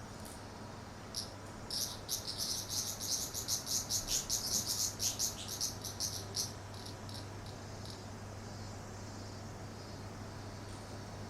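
A cicada calling in a rhythmic series of high, buzzing pulses, about four a second. It builds up about a second in, then breaks off into a few scattered pulses and stops a little past the middle, over a steady low hum.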